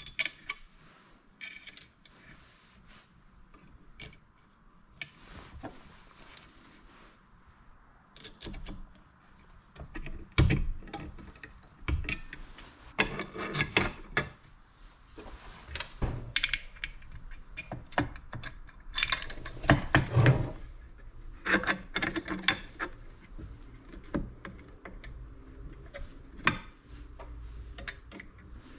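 Small metal parts of a Corvair front drum brake being fitted by hand: the shoes' hold-down pins, springs and retaining cups clicking and clinking against the steel backing plate and shoes. The clicks are irregular, with louder knocks and clatter in the middle.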